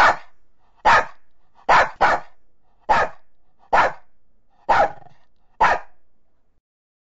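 A dog barking eight times, about one bark a second, with two barks close together near two seconds in. It is the bark of the virtual dog pet that the phone app shows on screen.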